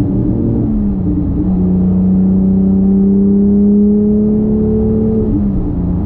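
Porsche 991.2 911 GT3 Touring's naturally aspirated 4.0-litre flat-six running under steady load, with tyre and road noise beneath it. Its pitch drops about a second in, climbs slowly for the next four seconds, then drops again near the end as the revs fall.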